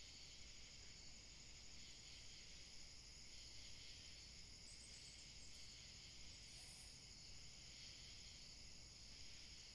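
Near silence: a faint, steady high hiss.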